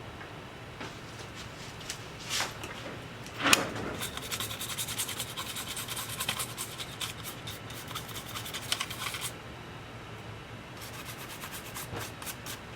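Scrubbing on a hard surface, as in cleaning built-up dust off a laptop's internals: a single knock about three and a half seconds in, then a run of rapid scratchy strokes from about four to nine seconds, and a shorter run near the end.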